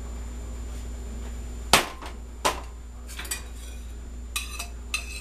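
Serving utensil knocking and clinking against dishware as pasta is scooped out: two sharp knocks under a second apart, the first the loudest, then several lighter clinks with a short ring.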